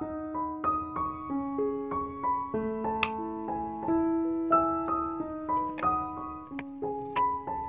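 Background piano music: a melody of single notes, each held briefly over lower sustained notes.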